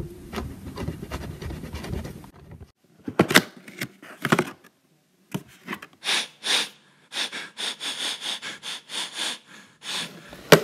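Creature sound effects as a monster emerges from a box: a low rumbling rustle, then a few sharp clicks, then a quick run of short hissing bursts, about three a second.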